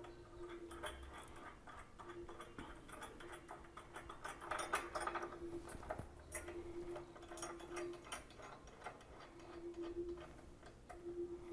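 Faint, scattered clicks and light taps of a steel saddlebag rack being handled and shifted into position against a motorcycle's frame and bolts, a little busier about halfway through.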